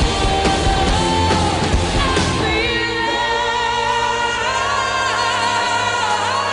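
Background music: a dense track with a heavy beat gives way about two and a half seconds in to sustained chords with a singing voice on top.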